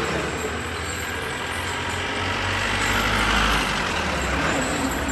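Road traffic: a diesel truck's engine running at low speed with a steady low hum, and a vehicle swelling past close by around three to four seconds in.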